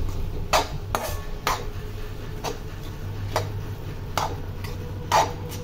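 A spatula scraping and knocking against a metal pan as a thick, sticky mixture of nuts and jaggery syrup is stirred, about one stroke a second.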